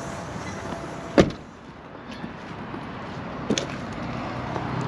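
Semi-truck cab door slammed shut about a second in, cutting off the cab's steady warning chime for the lights left on. A lighter knock follows a couple of seconds later.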